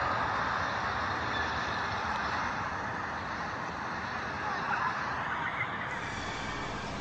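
Steady, pitchless rumbling roar with no clear tone, easing off slightly over the seconds; this is the kind of unexplained noise passed around as a strange sound from the sky.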